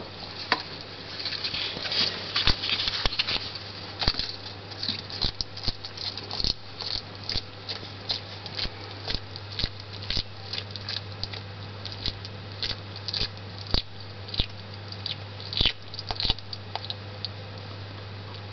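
A small pet coughing, with quick irregular clicks and crackles at a few a second and some louder ones among them, over a steady low hum. The pet is coughing and blowing bubbles, signs of a respiratory illness.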